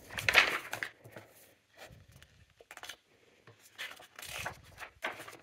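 Pages of a glossy magazine being turned and smoothed by hand: a few paper swishes and rustles, the loudest right at the start.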